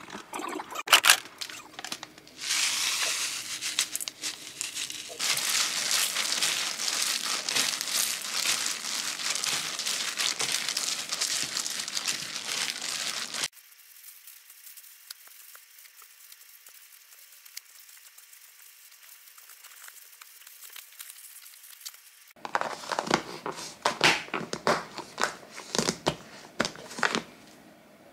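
Thin plastic crinkling and rustling as it is handled during food preparation, loud and dense for about ten seconds. Then comes a quieter spell of soft handling, and then more sharp, crackly crinkling near the end.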